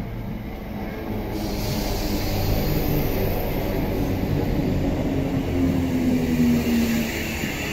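Two coupled ScotRail Class 320 electric multiple units running in along the platform: a steady rush of wheels and air that grows louder as the carriages pass close by. A low hum drops slightly in pitch near the end.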